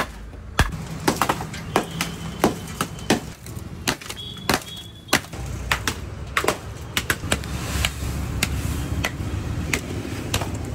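Flat wooden bats pounding a block of ice in a metal tub, cracking and crushing it into chips: a run of sharp, irregular whacks, about two a second.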